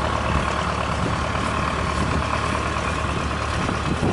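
Heavy vehicle engine idling steadily.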